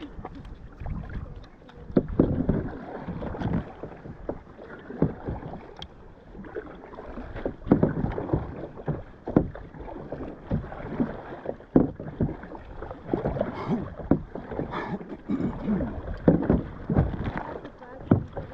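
Stand-up paddleboard paddle strokes in lake water: irregular splashing and sloshing, a surge roughly every second or two.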